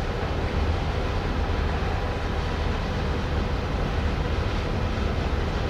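Steady low rumble of a ro-ro passenger ferry's engines running as she comes alongside the quay, with a faint steady hum over it.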